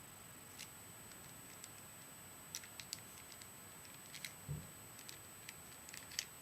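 Rubik's Cube layers being twisted by hand: faint, irregular plastic clicks, a handful in quick clusters, with a soft low thud about four and a half seconds in.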